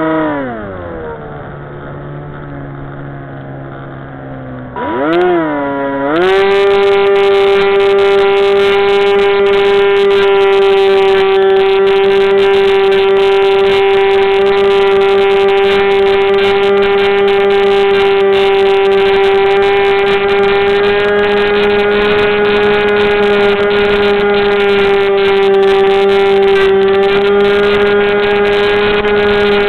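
Aerobird 3 RC plane's electric motor and propeller, heard from a camera mounted on the wing. The whine winds down to a low hum, then spins back up about five seconds in. It holds a steady high whine while the plane flies.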